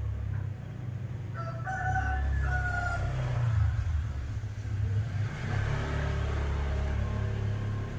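A rooster crows once, a stepped call of about a second and a half starting a little over a second in, over a steady low rumble.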